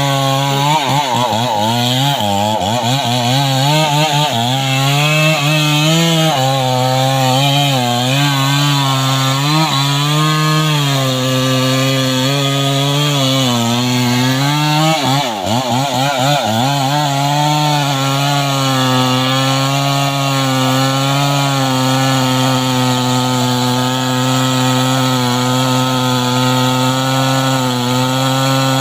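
Two-stroke chainsaw running at high speed while cutting mahogany, its engine pitch sagging and recovering again and again under the load of the cut, with one deep dip around the middle. For the last third it holds a steady high speed.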